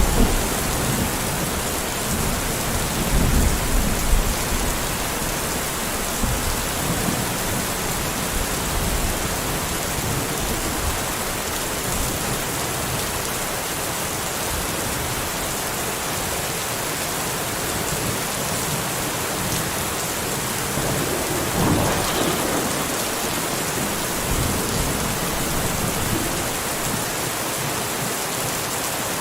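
Steady, even rainfall with low thunder rumbles, strongest in the first few seconds and again about three-quarters of the way through.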